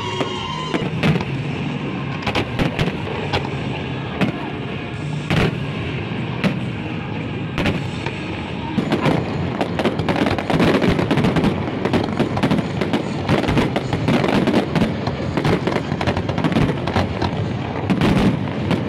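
Fireworks display: a running series of bangs and crackles from bursting shells, which grows denser and louder about nine seconds in.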